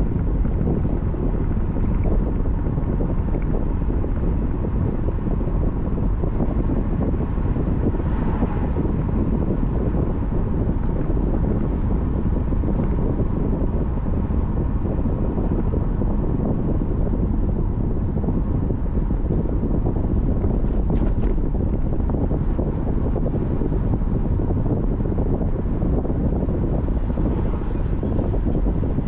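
Steady road and wind noise of a car driving, an unbroken low rumble with no let-up.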